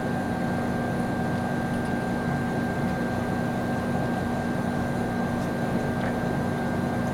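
Steady hum of a running machine, with a constant low tone and a thin high tone that hold unchanged throughout.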